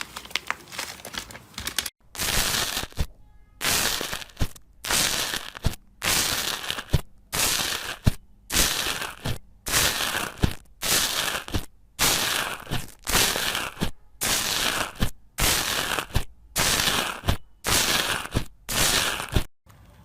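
Slime being pressed and squeezed by hand in repeated strokes, about one a second. Each stroke is a short burst of crackly noise that starts sharply and stops abruptly, after a stretch of steady crinkling at the start.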